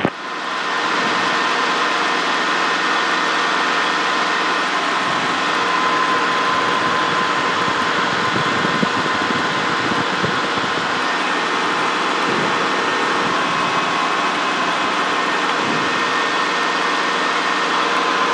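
Helicopter in cruise flight: a steady, even hiss of cabin noise with a faint constant hum, unchanging throughout.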